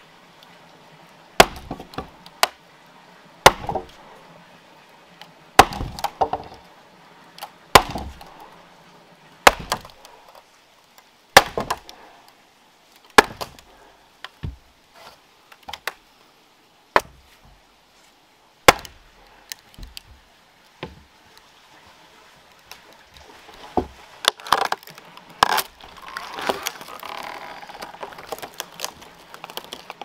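Heavy wooden mallet hammering a wooden wedge into a log to split it, a sharp knock about every two seconds. Near the end, a cluster of cracking and splintering as the wood splits apart.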